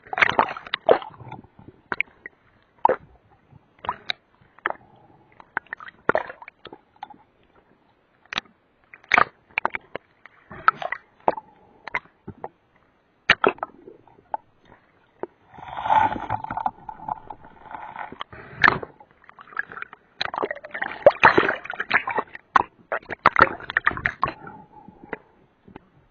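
Water sloshing and splashing around a spearfisher in the sea, with many scattered sharp clicks and knocks and longer gurgling, splashing bursts at two points.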